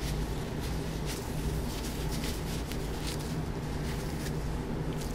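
Faint, irregular rubbing and rustling of a wet wipe scrubbing rusty steel watch-band spring-bar pins, over a steady low hum.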